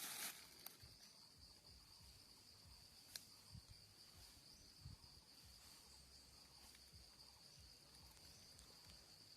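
Faint, steady high-pitched insect trill, with a sharp click about three seconds in.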